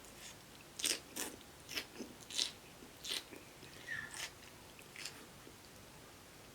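Close-up chewing of food, with a run of sharp, crisp mouth clicks and crunches every half second to second that die away in the last second or so.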